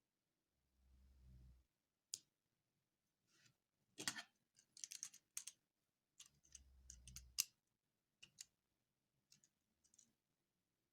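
Faint, scattered sharp clicks with a couple of brief low handling rumbles, loudest around the middle.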